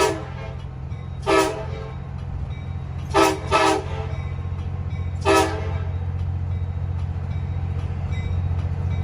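Nathan AirChime K5LA five-chime air horn with a small-bore 5 bell, sounded in five short toots: one at the start, one about a second and a half in, a quick pair a few seconds in, and one more past the middle. Under them runs a steady low rumble from the vehicle carrying it, which grows louder near the end. Heard from inside the vehicle.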